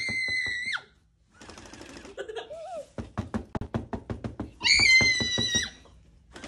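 A child knocks rapidly on a cardboard toy crate, about five knocks a second, with a high-pitched yell at the start and another near the end.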